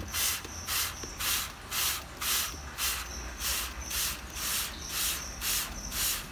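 Hand-pumped trigger spray bottle misting water in quick repeated squeezes, about two sprays a second, each a short hiss.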